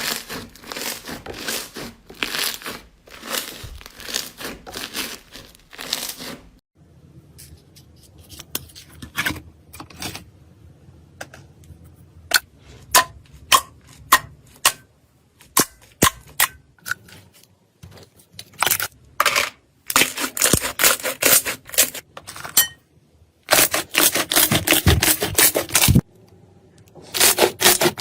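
Slime being pressed, poked and stretched by hand, giving a run of sharp clicks and pops, with denser crackling in the last third.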